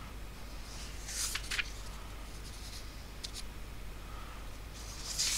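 Soft rustling and scratching from something being handled, in short bursts about a second in, briefly near three seconds, and again near the end, over a low steady hum.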